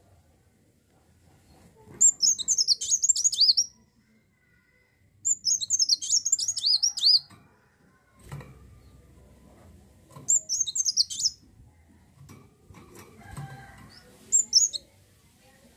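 Kolibri wulung, a sunbird, singing in loud bursts of rapid high twittering notes: three phrases of one to two seconds each with pauses between, then a brief snatch near the end.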